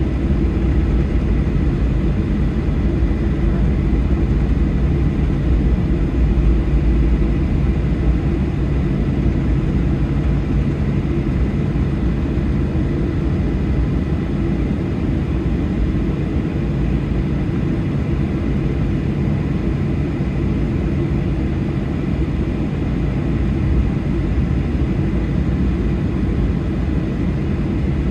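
Boeing 737-800's CFM56-7B jet engines at taxi power, heard from inside the cabin. A steady low rumble with a faint high whine held at one pitch.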